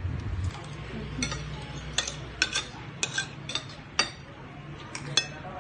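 Metal spoon and fork clinking and scraping against a plate in scattered, irregular light clicks as food is eaten.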